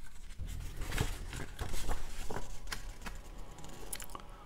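Sheets of printed paper rustling and crackling as they are handled and a folded art print is opened, with a run of quick sharp crinkles that is densest in the first half.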